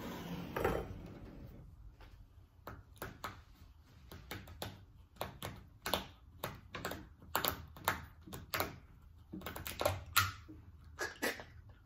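Blue plastic screw cap on a jug of 2% milk being twisted open: a long run of short, sharp plastic clicks, irregular and several to a second.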